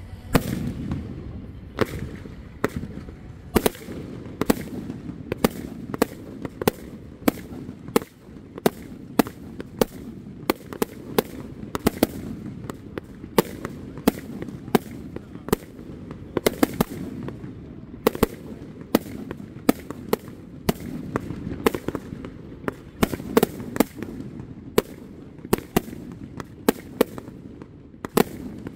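Aerial fireworks display: a rapid string of sharp shell bursts and cracks, about two a second, over a continuous low rumble.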